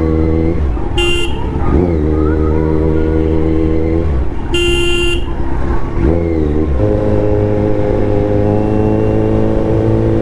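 Kawasaki Z900's inline-four engine running at steady revs in traffic, easing off and picking up again a few times. Two short vehicle-horn honks sound about one second in and again about four and a half seconds in, the second one longer.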